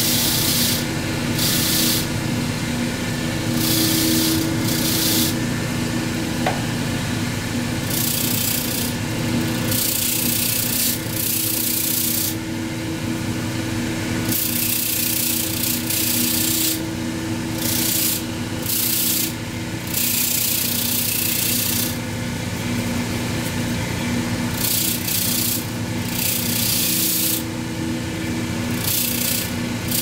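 Bench grinder motor humming steadily while its spinning wire wheel scrapes a vacuum cleaner's brush strip and brush roll clean. The scraping comes in repeated hissing bursts, each lasting about half a second to two seconds, as the brush is pressed against the wheel and drawn away.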